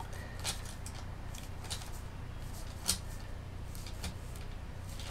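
A few light, sharp clicks and taps from a wooden modelling tool working clay, about four in five seconds with the sharpest near the middle, over a steady low hum.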